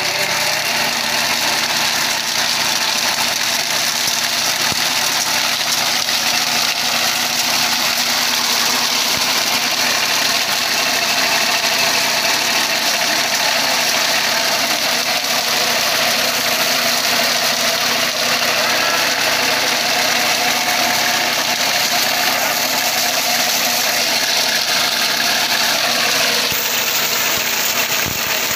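Mini tractor engine running steadily, driving a sugarcane de-trashing machine whose spinning drums strip dry leaves off the standing cane; a loud, continuous mechanical noise.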